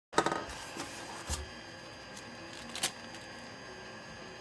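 Small accessory parts and their packaging being handled: a brief clatter and rustle just after a short dropout, a soft thump about a second in, and a single sharp click near three seconds, over a steady faint hum.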